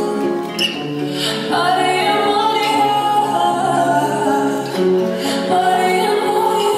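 Music: a song with a singing voice holding long notes over sustained accompaniment.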